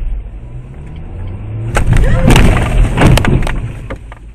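Car crash heard from inside a car: the engine note rises as it accelerates, then about two seconds in comes a loud crash of several impacts lasting over a second before dying away.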